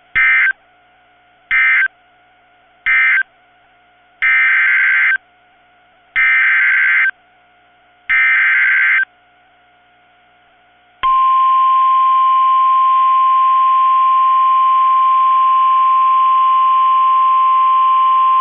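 NOAA Weather Radio Emergency Alert System tones: three short bursts of screechy digital data, then three longer data bursts about two seconds apart, then the steady 1050 Hz warning alarm tone starting about 11 seconds in. The short bursts are the end-of-message code closing one warning, the longer ones the SAME header announcing the next severe thunderstorm warning, and the long tone the alert that warns listeners it is coming.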